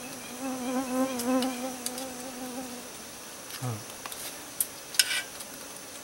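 A flying insect buzzing close by for about two and a half seconds, its pitch wavering slightly. After it come a few short, light clinks of spoons against bowls.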